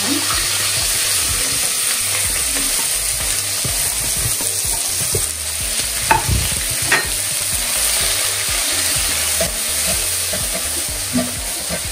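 Chopped red onions sizzling in hot oil in a frying pan, stirred with a spatula. There are two sharp knocks just past halfway.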